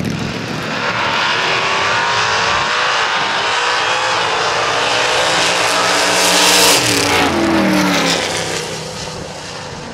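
Two vintage gasser drag cars launching side by side and accelerating hard down the strip, their engines climbing steadily in pitch. About seven seconds in, the pitch drops as the cars pass and then fade away down the track.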